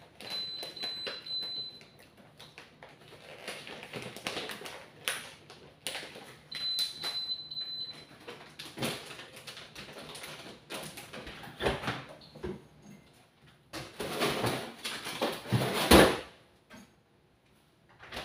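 Food packaging rustling and things being handled and set down at an open refrigerator, with scattered clicks and knocks and a loud knock near the end. A high steady beep sounds twice, briefly.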